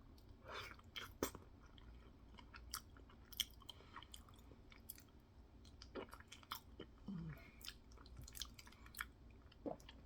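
Open-mouth chewing of a soft, saucy food mixture, with frequent irregular wet smacks and clicks of the lips and tongue.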